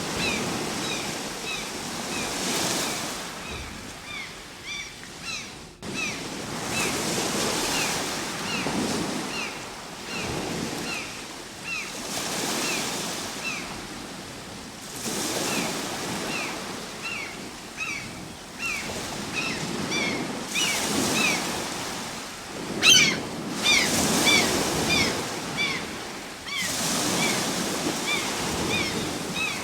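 Ocean waves breaking and washing in slow swells every few seconds, with short, high, falling chirps repeating throughout. A brief sharp crackle comes a little past the middle.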